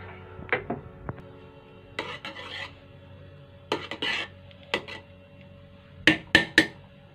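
Metal spoon scraping and clinking against a metal pot as it mixes cooked rice: irregular scrapes and knocks, ending in a quick run of three sharp clinks about six seconds in.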